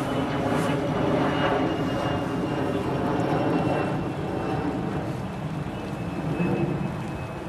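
Jet airplane passing overhead: a steady engine rumble with a thin high whine that slowly drops in pitch.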